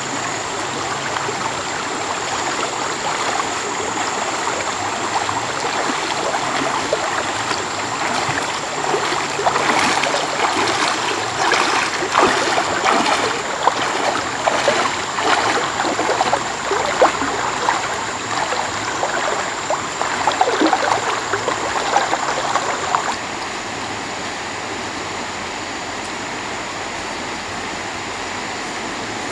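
Running water, with irregular splashing through the middle. The splashing stops about two-thirds of the way in, leaving a steady rush of water.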